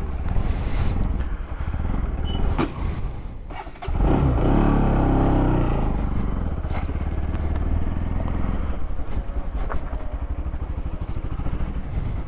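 Motorcycle engine running under way, rising in pitch and level about four seconds in as it accelerates, then holding a steady drone.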